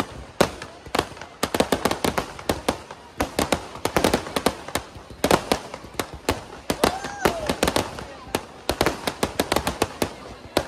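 Fireworks going off: a dense, irregular run of sharp bangs and crackles with no let-up.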